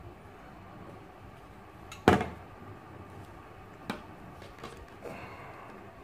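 Hard plastic parts of a Philips MiniVac handheld vacuum knocking and clicking as they are handled and fitted together: one loud sharp click about two seconds in, a smaller click near four seconds, and a couple of fainter knocks after that.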